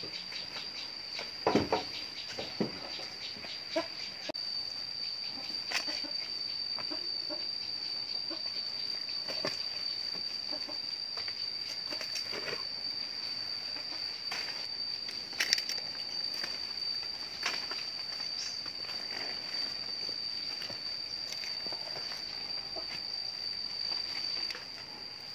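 Insects droning in one steady high-pitched tone, with scattered rustles and snaps as leaves are picked from vines. There are a couple of louder knocks about a second and a half in.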